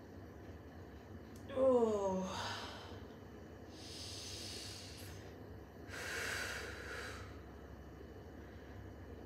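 A woman in early labour breathing through a contraction: a short moan falling in pitch about a second and a half in, then two long, breathy breaths.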